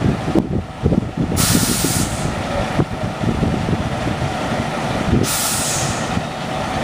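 Charter coach buses letting off compressed air: two loud hisses, one about a second and a half in and another about five seconds in, over the steady low rumble of idling bus engines.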